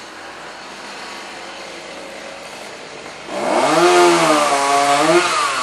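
A two-stroke chainsaw revs up about three seconds in and runs at high throttle, its pitch climbing, holding and then dipping near the end, over low background noise before it.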